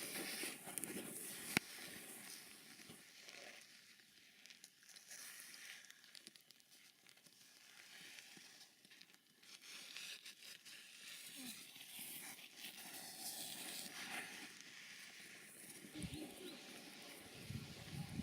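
Faint crunching and rustling of footsteps in snow, with one sharp click about a second and a half in.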